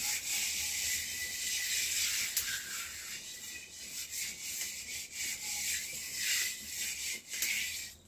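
Steady, scratchy sizzling from a metal cooking pot held over an open wood fire, swelling and easing irregularly and cutting off suddenly at the end.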